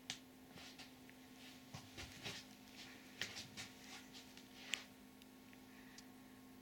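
Faint, scattered light clicks and taps of handling over a steady low hum, otherwise near silence; the sharpest click comes a little under five seconds in.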